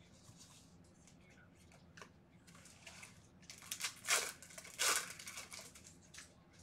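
Foil trading-card pack wrapper being torn open and crinkled, with two louder tearing rips about a second apart around four seconds in, amid lighter rustling of the cards.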